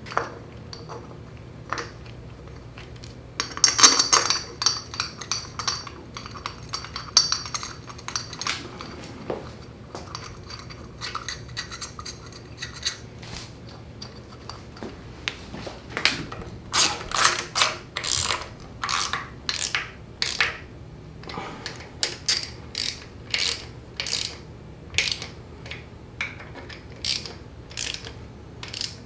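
Metal parts and tools clinking together about four seconds in. Then a hand ratchet clicking in quick repeated strokes through the second half, as a part's bolts are run in on a Ford 5.0L Coyote engine.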